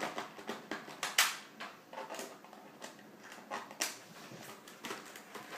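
Plastic clicks and knocks as a battery pack is fitted back into an Acer Aspire 5520G laptop's battery bay. Two sharper snaps stand out, about a second in and just before four seconds.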